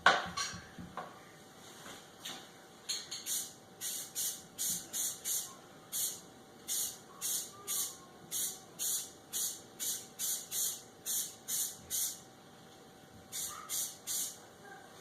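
Aerosol spray-paint can spraying black high-gloss paint in quick short bursts, about two to three a second, with a pause near the end.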